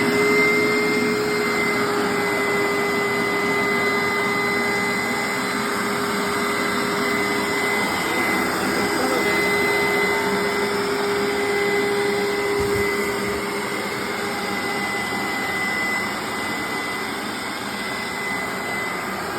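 Hoover SteamVac Dual V carpet cleaner running on its wash cycle: a steady motor drone with a high whine over rushing suction noise, reaching full speed in the first moment.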